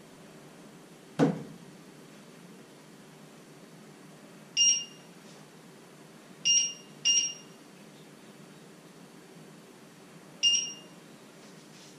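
Electric cooktop's touch controls beeping as the hob is set: four short electronic beeps, two of them close together in the middle. About a second in, one dull thud as the kettle is set down on the glass top.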